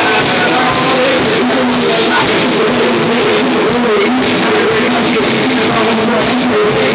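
A live rock band playing loud through a PA, with guitar and drums and a man singing into a microphone.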